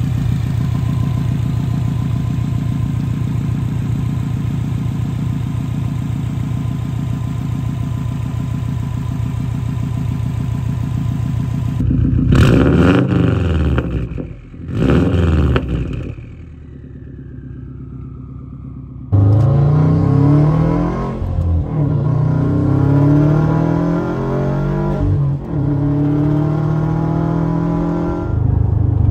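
Swapped-in Subaru EJ20X turbocharged 2.0 L flat-four in a WRX, through a single-exit Tomei exhaust: idling steadily, then revved twice, rising and falling each time. Later it pulls hard while driving, climbing in pitch through several gear changes, heard from inside the cabin.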